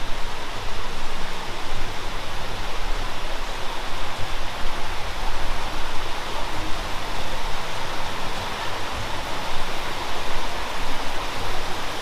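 Waterfall and its stream cascades rushing steadily.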